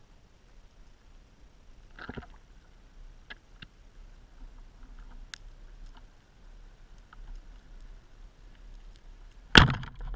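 A rubber-band speargun fired underwater: one sharp, loud crack as the bands release near the end, after a few faint clicks.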